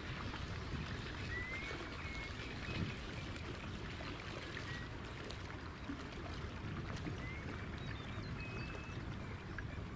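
Steady rush of water and wind around a small sailing boat under way. Several faint, short chirps sound over it, some rising in pitch.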